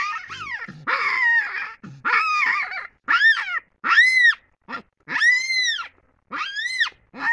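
Hamadryas baboon screaming: a run of about eight shrill calls, each rising and falling in pitch, about one a second. The first few are rough and the later ones clearer.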